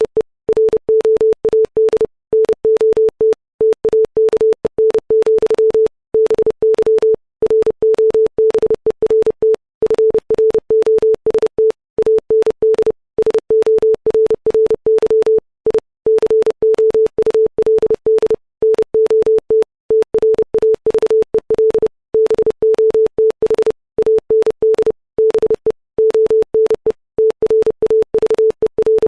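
Computer-generated Morse code: a pure 440 Hz sine-wave tone keyed on and off in rapid dots and dashes at 30 words per minute, spelling out the text of Robert Frost's poem "The Road Not Taken". Each tone starts and stops with a faint click, and short silences fall between letters and words.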